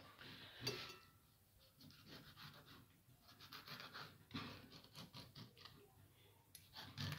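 Chef's knife cutting through a grey mullet on a wooden cutting board: faint, repeated scratchy scraping of the blade through the fish and against the board, with a few firmer strokes.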